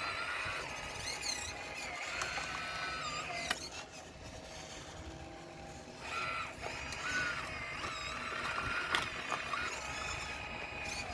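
RC model excavator's electric hydraulic pump and motors whining, the pitch stepping up and down in short runs as the machine moves, with two sharp knocks of stone along the way.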